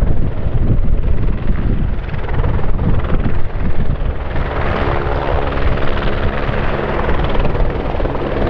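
Airbus Helicopters H125 helicopter running close by: a loud, rapid rotor chop with steady engine tones coming through over it from about halfway on.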